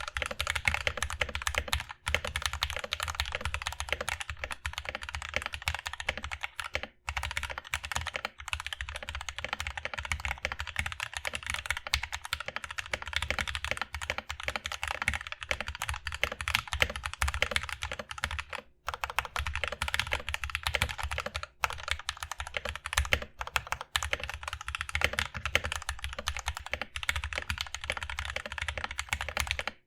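Fast, continuous typing on a mechanical keyboard with linear switches mounted on an aluminum plate, a dense stream of key clacks with brief pauses about 7 and 19 seconds in.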